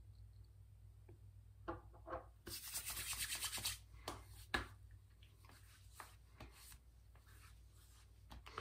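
Hands applying aftershave splash after a shave: a few soft taps, then palms rubbed briskly together for about a second, then patting and rubbing on the face and neck.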